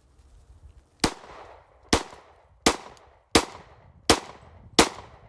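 Taurus G2C semi-automatic pistol firing six shots at a steady pace, about one a second, starting about a second in, each crack with a short echo trailing off.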